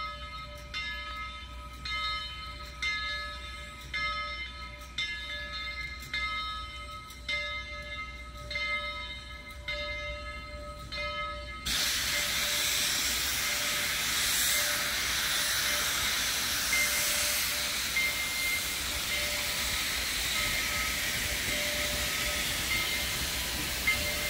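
Steam locomotive's bell ringing steadily, about three strokes every two seconds. About halfway through, a loud hiss of escaping steam starts suddenly and runs on, with the bell still ringing faintly under it.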